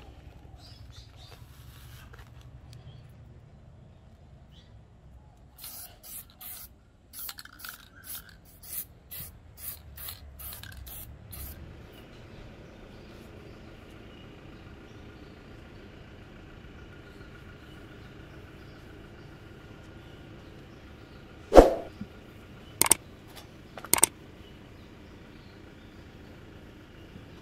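A quick run of about a dozen short scratchy strokes, then, near the end, three sharp knocks about a second apart as the axe, held upright by its Millettia leucantha handle, is thumped head-down onto the towel-covered wooden bench to seat the 4 lb head on the handle. A faint steady hum runs underneath.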